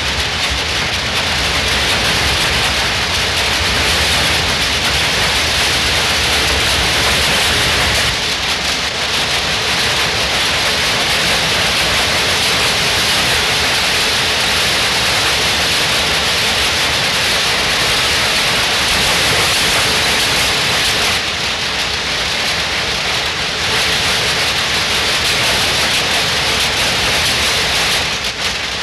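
Textile mill machinery, looms among it, running together as a loud, dense, steady mechanical clatter and hiss. The texture shifts slightly about eight seconds in and again around twenty-one seconds.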